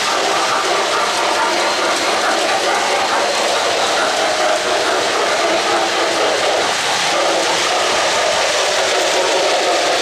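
O-gauge model trains running on three-rail track: a steady rumble and hiss of wheels on the rails and motors.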